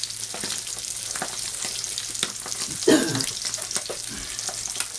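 Sea bass fillets frying skin-side down in butter in a frying pan over a gentle heat: a steady sizzle with fine crackling, and one louder brief sound about three seconds in.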